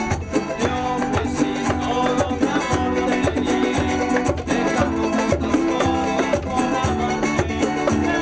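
Live Latin American folk music: an acoustic guitar strummed over a steady beat of bongos, with a man singing.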